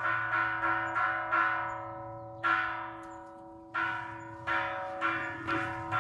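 Metal bells or chimes ringing. They are struck again and again, a few times a second, on the same set of pitches, each strike ringing on, with a couple of short pauses.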